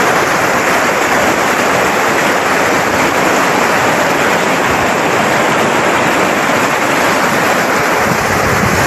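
Swift river water rushing over large rocks: a loud, steady wash of noise with no breaks.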